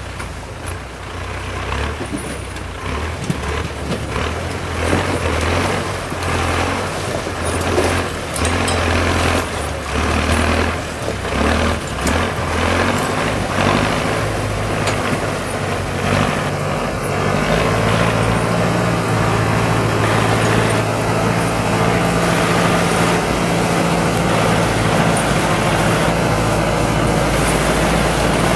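ZIL-131 six-wheel-drive army truck's V8 engine labouring at low revs as it crawls over rocks and through a creek on chained tyres, with repeated clanks and knocks. About halfway through the engine note rises and then holds steady.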